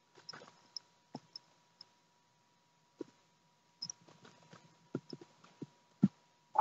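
Faint scattered clicks and handling bumps as a cat is petted, with a few brief high tinkles from the small bell and tags on its collar.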